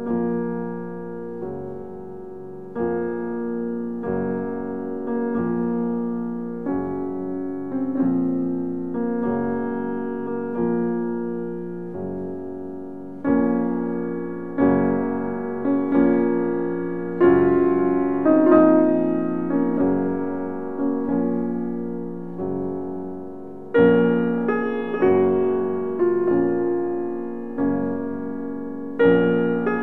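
Slow solo piano background music: chords and notes struck every second or two and left to ring out.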